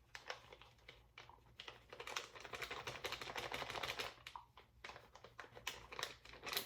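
A kitchen knife cutting food on a cutting board: quick runs of light taps on the board, with a short pause a little past the middle.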